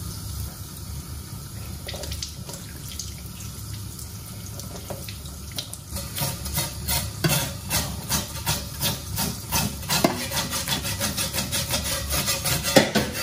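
Tap water running into a stainless steel sink, and from about six seconds in a knife scraping the scales off a sea trout in quick repeated strokes.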